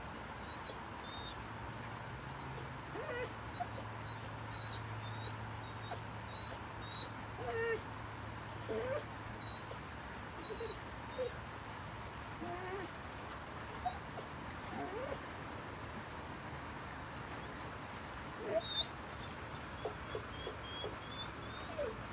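Dog whimpering: many short, scattered whines that bend up and down in pitch, with faint higher chirps among them. It is a reaction to noises from the neighbours.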